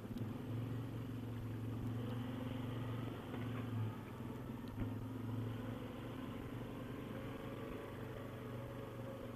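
Quad ATV engine running steadily at low speed as the quad rolls slowly along.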